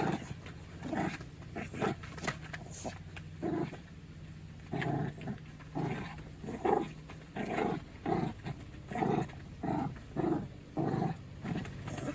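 Dog barking in a run of short, repeated barks with some growling. The barks settle into about two a second through the second half.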